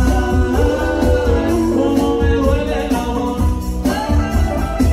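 Live band performing a song: male vocals sung into microphones over electric guitar, bass, keyboard and drums, with held, bending sung notes over a steady beat.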